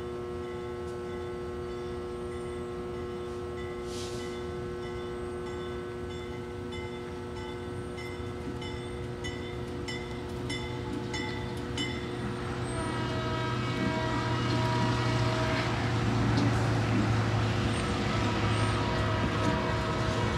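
Diesel locomotive approaching with a train of cabooses, its engine rumble and running noise growing steadily louder over the second half, over a steady hum.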